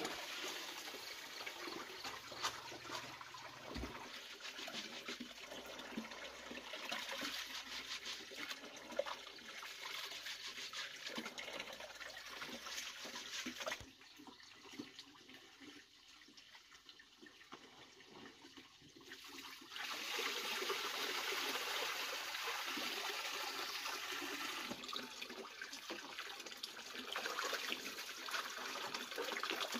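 Water running and splashing, dropping away for several seconds about halfway through, then running again.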